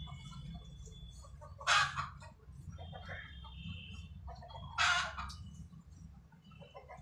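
Two short, loud, harsh bird squawks about three seconds apart, with faint thin high chirps between them over a low steady hum.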